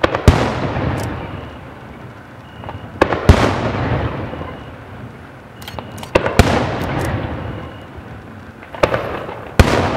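Aerial firework shells bursting: four loud bangs about three seconds apart, each followed by a long fading echo, with smaller pops just before each bang.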